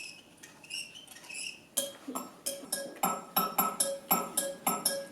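Faint high squeaks, then from about two seconds in, music with a quick, even beat of short repeated notes, about four a second.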